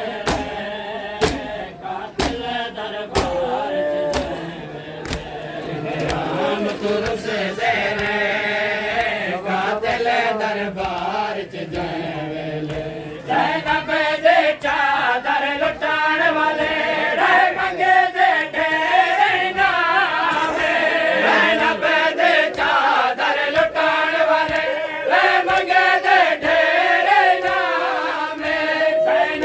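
A group of men chanting a noha, a Shia lament, in unison, with a steady beat of hands striking chests (matam) keeping time. The chanting and beating grow louder about halfway through.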